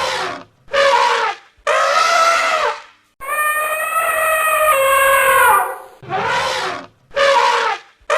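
Elephant trumpeting: a run of loud calls, most about a second long with short gaps, and one longer blast of over two seconds in the middle. Several calls drop in pitch as they end.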